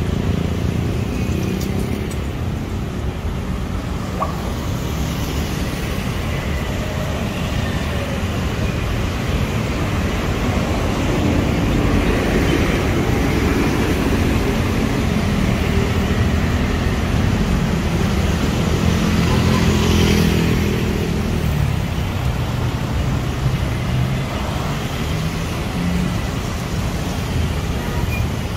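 Road traffic: cars and motorbikes running steadily, a low continuous rumble that swells a little as vehicles pass.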